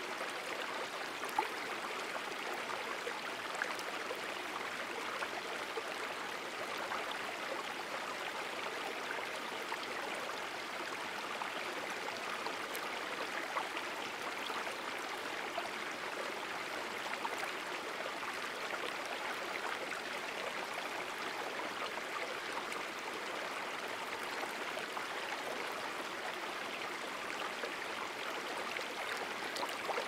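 Steady rush of a stream's running water, an even hiss with small scattered splashy ticks and one slightly louder tick about a second and a half in.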